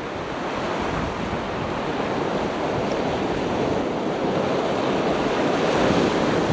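Surf washing on the shore with wind rushing over the microphone, a steady wash that swells slowly toward the end.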